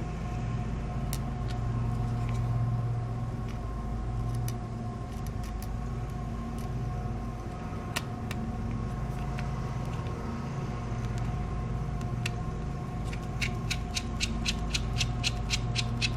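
Small clicks of a precision screwdriver and tools on a phone's screws and parts. Near the end comes a quick run of about a dozen clicks, roughly five a second, over a steady machine-like hum.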